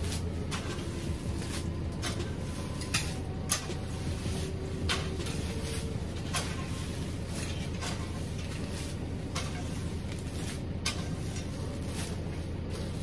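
Rake and fork tines scraping through and flinging loose wood chips, a string of short irregular swishes and scrapes, over a steady low hum.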